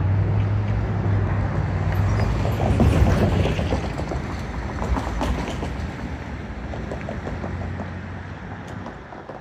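Link light rail test train running on the line: a steady low hum with rail noise that swells to its loudest about three seconds in, then fades away, the hum stopping shortly before the end.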